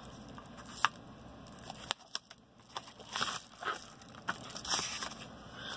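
Yellow paper bubble mailer being handled and opened by hand: intermittent crinkling and crackling of the paper and its bubble lining, with a few sharp clicks, busiest a little past halfway.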